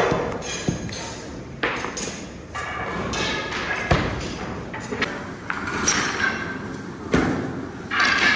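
Long wooden rolling pins knocking and thudding against marble work tables as thin sheets of baklava dough are rolled out, in irregular sharp knocks a second or so apart.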